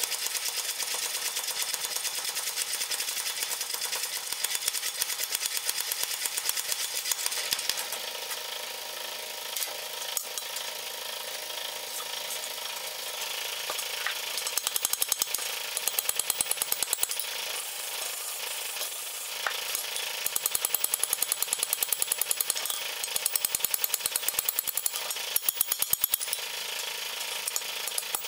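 Mechanical power hammer pounding rapidly on a red-hot iron bar for the first several seconds. From about halfway through, a hand hammer strikes the hot bar on an anvil in runs of quick, ringing blows.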